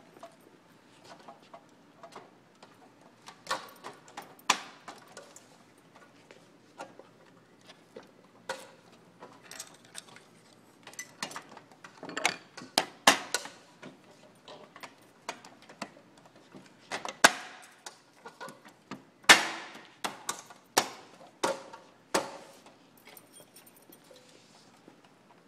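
Irregular clicks, taps and light metallic clinks of Haworth Enhanced cubicle panel hardware being handled and fitted together, with the loudest knocks around the middle and a cluster about three quarters of the way through.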